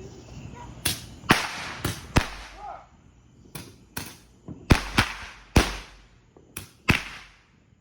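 Fireworks going off: a rapid, irregular string of about ten sharp bangs, starting about a second in, some ringing on briefly after the crack.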